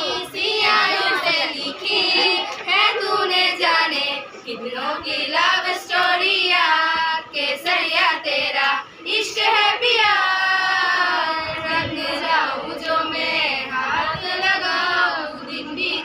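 A small group of schoolgirls singing a song together, unaccompanied.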